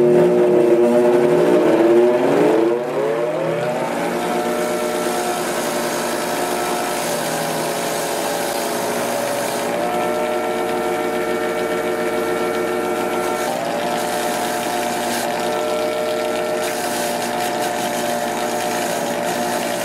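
Kmart bench grinder running, a steady motor hum with several pitched tones, as a rusty bayonet handle is held against the spinning wheel. The sound is loudest in the first few seconds while the pitch slides lower, then settles into an even hum.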